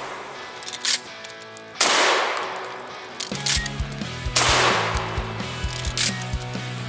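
Pump-action shotgun fired twice, about two and a half seconds apart, each shot trailing off in a long echo, with a third shot right at the end. Between the shots come short metallic clicks as a single shell is loaded and the action is worked.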